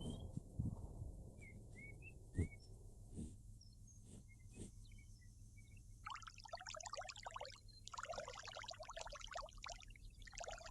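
Faint wetland ambience: a few small bird chirps and soft knocks, then from about halfway several seconds of crackling, splashing water sound in bursts.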